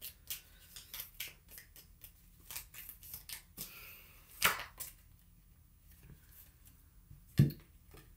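Tarot cards shuffled by hand: a quick, irregular run of card clicks and slides for about five seconds, then a pause and a single loud thump near the end.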